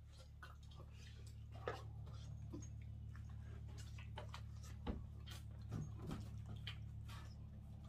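Scattered light clicks and taps over a steady low hum, with two louder knocks, one near the start and one about midway.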